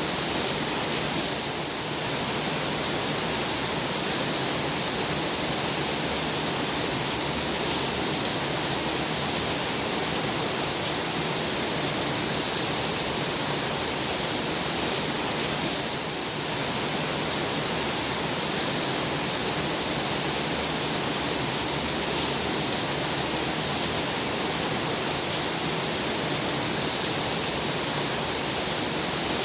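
Heavy rain pouring steadily as a dense, even hiss, with a slight brief dip about two seconds in and again around sixteen seconds.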